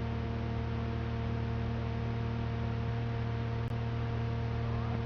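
Steady tape hiss with a low electrical hum from a cassette running on blank after the recording ends. A single faint tick comes a little after halfway.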